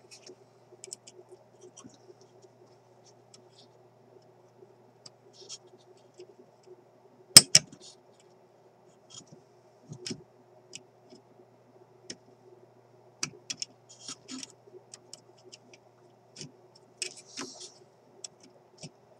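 Small scattered clicks and taps of needle-nose pliers and a wire lead against the terminals of an old radio chassis, with one sharp click about seven seconds in, over a faint steady hum.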